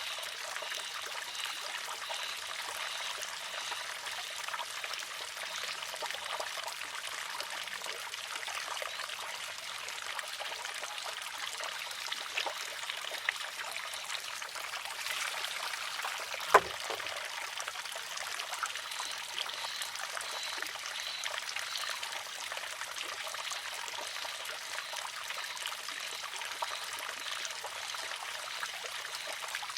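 Water trickling steadily from the spout of a wooden shishi-odoshi, with one sharp wooden clack a little past halfway as its pivoting arm tips over and strikes the rock.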